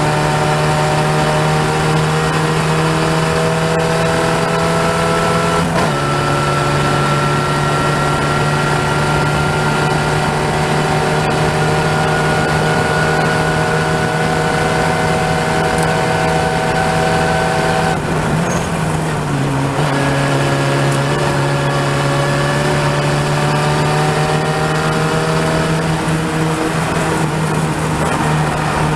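Open-wheel race car engine running hard, heard from on board the car, its pitch climbing steadily under acceleration. The pitch breaks and steps down briefly about six seconds in; around eighteen seconds the engine note drops away for a moment, then returns lower and climbs again.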